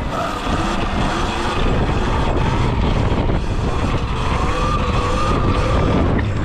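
Electric dirt bike riding, its motor whine wavering up and down in pitch with speed, over a steady low rumble of wind on the microphone.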